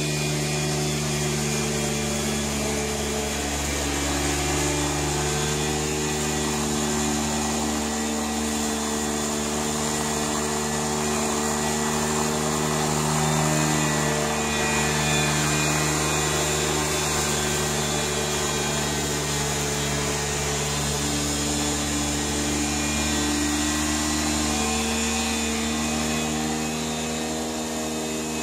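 Small lawn mower engine running steadily with its blade cutting grass, on a remote-controlled tracked mower. It grows a little louder as the mower passes close about halfway through.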